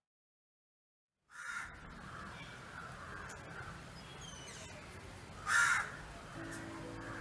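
Silence, then outdoor ambience fading in a little over a second in, with birds calling; the loudest call comes about five and a half seconds in. A low steady hum starts near the end.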